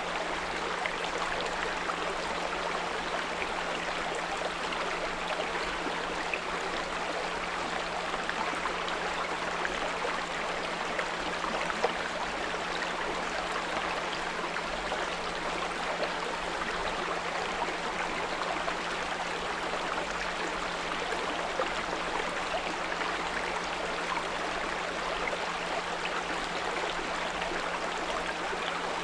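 Small brook running steadily, with a continuous 174 Hz pure tone humming beneath the water.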